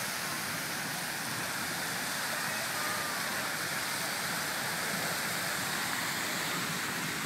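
Fan and Mortar geyser erupting: a steady rush of water jetting and falling, mixed with hissing steam.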